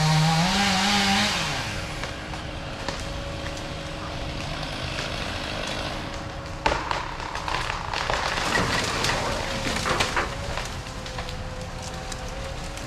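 Heavy machinery engine working at a roadside tree felling, its pitch rising and falling for the first second or so, then running steadily, with scattered sharp cracks and knocks and one louder knock about halfway through.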